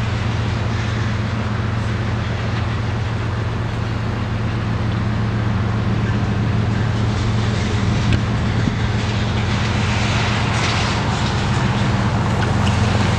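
Steady low engine drone, with road noise growing louder from about ten seconds in as a pickup truck approaches.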